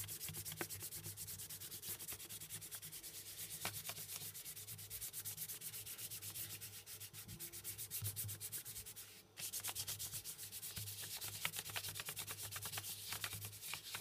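Chalk pastel being rubbed back and forth across paper in quick scratchy strokes, with a short break about nine seconds in.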